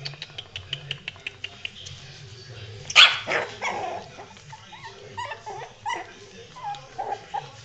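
Chocolate-and-white Shih Tzu puppies at play: a run of quick light clicks of claws on a tile floor, then one loud sharp yip about three seconds in, followed by a string of short, squeaky yips and whimpers.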